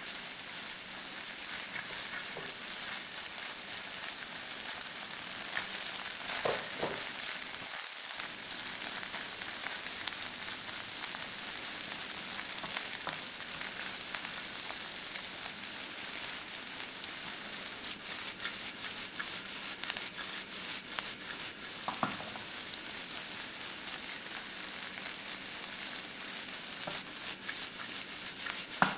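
Food sizzling steadily as it is stir-fried in a hot pan, with a few brief knocks of the spatula against the pan.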